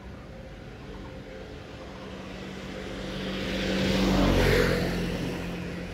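A motor vehicle passing by: its engine and road noise swell to a peak about two-thirds of the way through, then fade.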